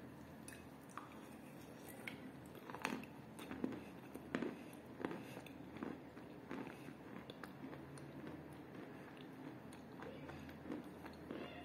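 A person biting and chewing pieces of eating chalk in a kaolin clay 'soup': a run of sharp, crisp crunches, loudest a few seconds in, then thinning to softer chewing.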